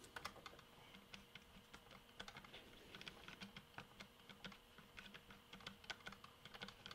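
Faint, irregular small clicks of a screwdriver backing a screw out of an M1 carbine, metal ticking against metal as the screw is turned.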